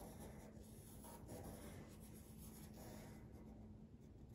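Wooden pencil scratching faintly on paper as it traces the outline of a hand, in a run of short strokes.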